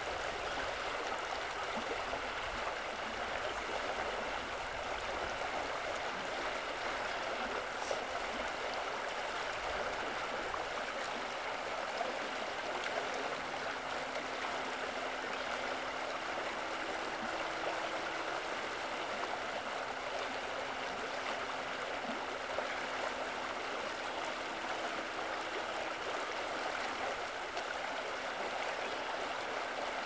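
Small creek running over a shallow, rocky riffle: steady babbling and rippling water. A faint low steady hum joins in about halfway through.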